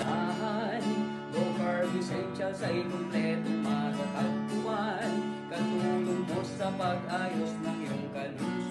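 Background music led by strummed acoustic guitar, with a wavering melody line over it.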